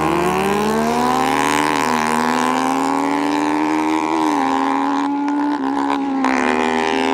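Kawasaki Z1000 inline-four and a modified Yamaha Mio single-cylinder scooter accelerating hard away in a drag race. The engines rise in pitch, then hold at high revs, and the pitch dips briefly a few times.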